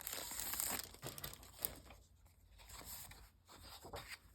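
Crinkling and rustling of a floral masking sticker set's packaging as it is opened and handled, louder over the first second or two, then quieter with a few soft clicks.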